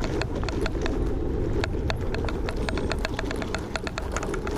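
Langfeite L8S electric scooter riding over a bumpy dirt forest trail: a steady low rumble from the tyres on the ground, with the scooter's frame and parts rattling in rapid, irregular clicks and knocks.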